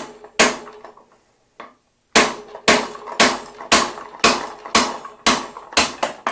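Hammer blows on a steel bottom bracket removal tool, about two a second, each strike ringing briefly. A Park Tool hammer is driving a press-fit Raceface EXI BB92 bottom bracket cup out of the frame's shell.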